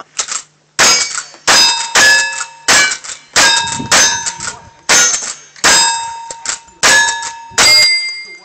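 A rifle fired about ten times in quick succession, a shot roughly every three-quarters of a second. After each shot comes the bell-like ring of a struck steel target.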